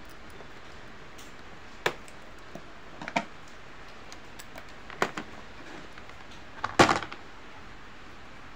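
Sharp plastic clicks and knocks, four in all with the loudest a short clatter about seven seconds in, as scissors snip the tie on a plastic basket's latch and the latch and lid are unclipped and opened.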